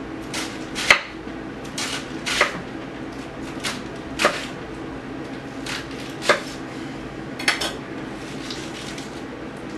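Sharp kitchen knife slicing through a dense head of cabbage into thick strips: about ten short, sharp knocks at an uneven pace, often in pairs.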